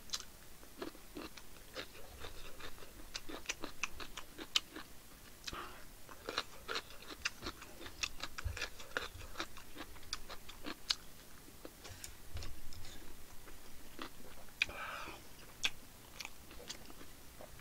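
A person chewing food close to the microphone: an irregular run of wet mouth clicks and smacks.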